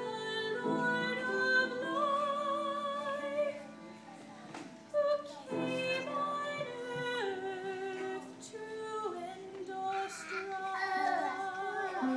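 Music: a woman singing a slow melody with vibrato on long held notes, briefly dipping about four seconds in before the next phrase.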